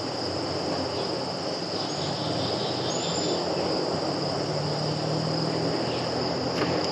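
Steady background noise: an even hiss with a constant high-pitched drone, and two faint brief high chirps about two and three seconds in.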